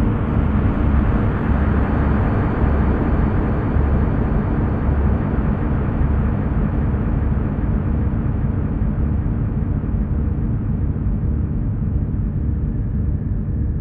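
Dark ambient drone music: a dense, rumbling low drone under a noisy hiss, its upper edge slowly growing duller.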